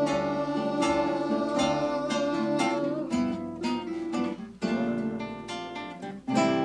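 Acoustic guitar playing plucked notes and strummed chords, with two brief breaks in the second half.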